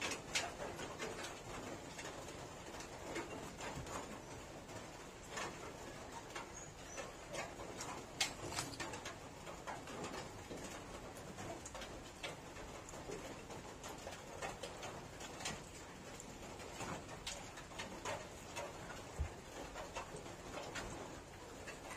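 Close-up eating sounds of a person eating rice and fried fish by hand: chewing and wet mouth smacks, with fingers working rice on a steel plate, as a string of irregular soft clicks.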